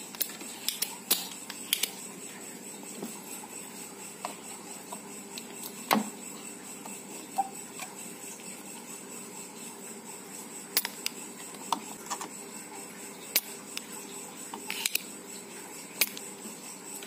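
Scattered small clicks and taps of a soldering iron and desoldering pump working on a circuit board while a transistor's base leg is desoldered, over a steady faint hum.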